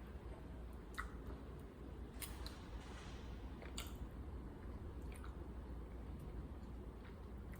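A person chewing food close to the microphone, with a few sharp wet mouth clicks and smacks scattered through it over a steady low hum.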